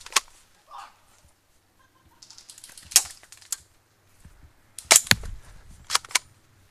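Airsoft guns firing scattered single shots, sharp snaps: one right at the start, one about three seconds in, then two quick pairs near the end.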